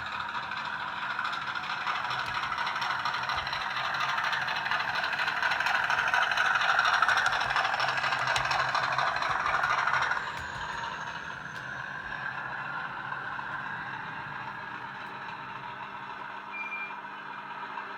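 Hornby Class 50 OO gauge model's DCC sound decoder playing a Class 50 diesel engine running under power, from a sound file recorded from the real locomotive 50026. It grows louder toward the middle, drops suddenly about ten seconds in, then runs on more quietly.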